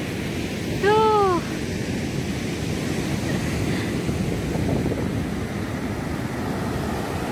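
Steady rush of ocean surf breaking on the beach. About a second in, one short, loud call rises and falls in pitch.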